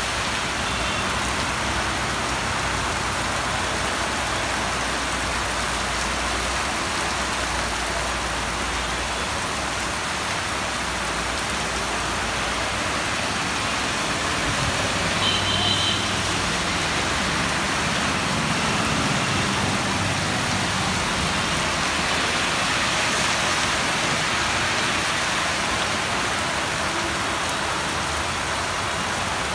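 Heavy rain pouring down on a road, a steady hiss throughout, with vehicles driving past on the wet road and a low engine hum under the rain at times.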